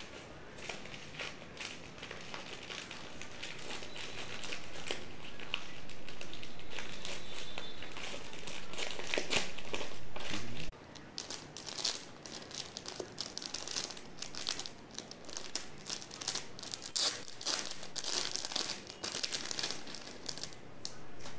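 Paper courier envelope and plastic packaging pouch crinkling and crackling as they are opened and unwrapped by hand. The crackles come in quick irregular bursts and grow denser and louder in the second half.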